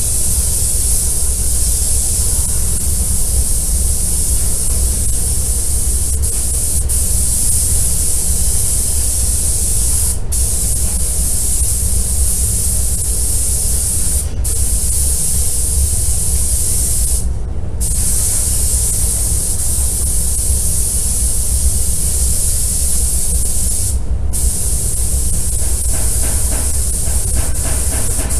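Compressed-air gun on a hose, hissing steadily and cutting out briefly four times as the trigger is let go, the longest gap about half a second. A steady low hum runs underneath.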